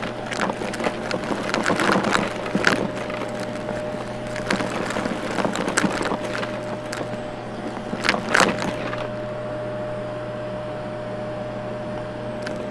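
Vacuum cleaner running with a steady motor hum while it sucks up crunchy debris from a carpet, the bits crackling and clicking through the nozzle. The crackling thins out for a few seconds near the end while the motor keeps running.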